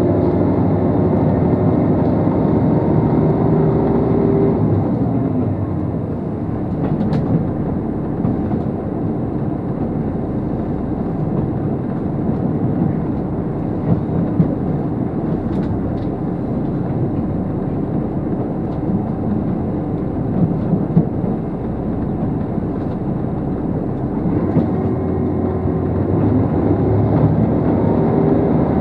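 Running noise of a JR Shikoku 2700 series diesel limited express train heard from inside the car: steady rumble of wheels on rail under the diesel engine's drone, with a few short rail clicks. The engine tone eases off after about five seconds and comes back near the end.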